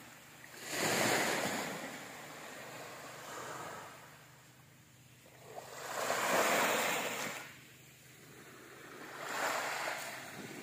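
Small waves washing up onto a sandy beach, with three surges of wash about a second in, around six and a half seconds in and near the end, and a softer wash between them.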